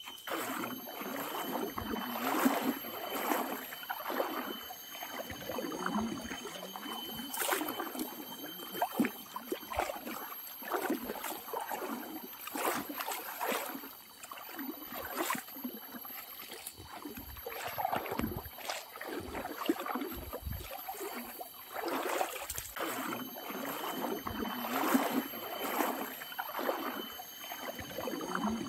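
Feet wading through a shallow river, splashing with each stride in an uneven rhythm over the running water.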